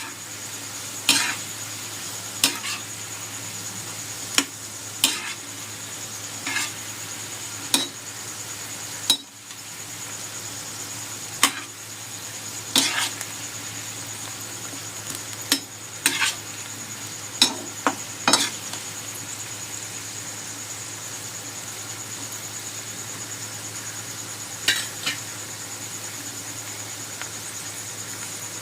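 French fries frying in hot oil with a steady sizzle, while a metal utensil knocks and scrapes against the pan every second or two as the fries are stirred. The knocking stops after about 18 s and comes back as a short pair later on.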